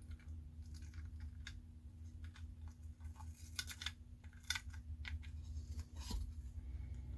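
Faint, irregular little clicks and taps of tweezers handling small model parts, over a steady low hum.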